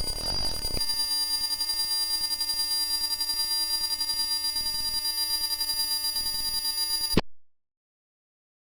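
Black MIDI playback: a dense cluster of many synthesized notes held together, giving a steady buzzing, alarm-like drone. It thins out in the low range about a second in, then cuts off abruptly with a click into dead silence near the end.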